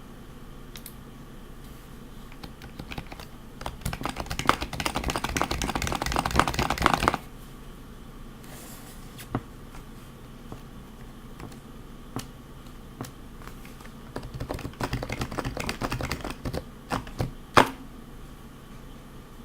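Typing on a custom HHKB JP Topre keyboard with heavy BKE domes, Hi-Pro keycaps and silenced purple sliders: fast runs of muted keystrokes from about four to seven seconds in and again from about fourteen to seventeen seconds, with scattered single keypresses between and one sharper keystroke near the end.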